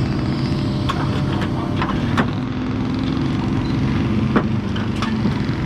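A vehicle engine running steadily, with a few sharp clanks over it.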